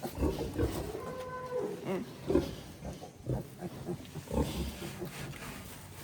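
Pig calls: short low grunts throughout, with one longer call that rises and falls in pitch about a second in.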